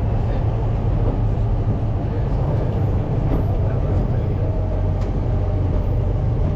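A 1927 Drewry railcar in motion, heard from inside its cab: a steady low rumble of its engine and of the wheels running on the rails.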